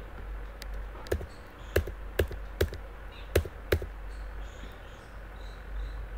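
About seven sharp, irregularly spaced clicks of keys or buttons being pressed on a computer while a web page is scrolled, falling between about half a second and four seconds in.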